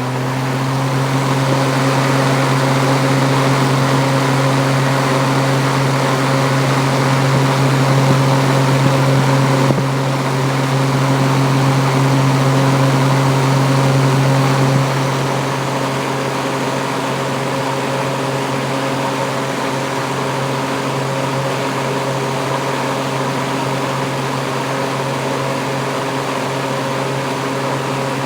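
Kitchen exhaust fan running steadily at full speed, a loud electric-motor hum under an even rush of air. It is just finishing spinning up at the start, and about halfway through the hum eases a little and stays steady.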